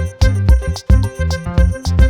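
Upbeat background music with a steady beat: bass notes and percussive hits about four times a second under a melody.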